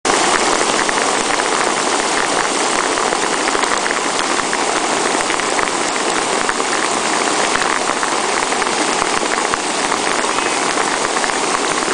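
Whitewater river rapids rushing, a steady, loud churn of water with no let-up.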